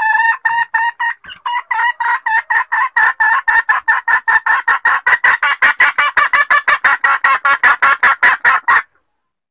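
Forest chicken (junglefowl) hen giving a long run of rapid, sharp clucks, about four a second at first and quickening to about six a second, then breaking off abruptly near the end.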